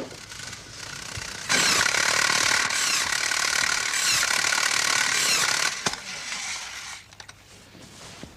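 A loud mechanical noise that starts suddenly about a second and a half in and cuts off before six seconds, followed by quieter noise.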